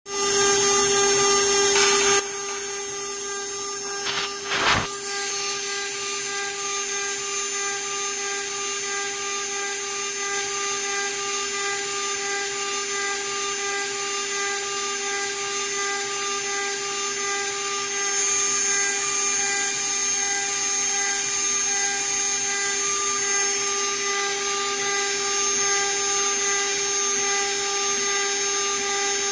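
CNC router spindle running at high speed with a steady whine while a small engraving bit mills a pocket into a metal sheet, with a hiss of cutting over it. The first two seconds are louder, there is a brief sharp knock about five seconds in, and the sound grows a little louder from about eighteen seconds on.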